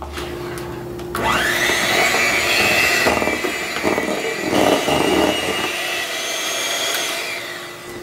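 Electric hand mixer running, its pitch rising as it starts about a second in. The beaters churn whipped topping into cream cheese in a stainless steel bowl, and the motor winds down near the end.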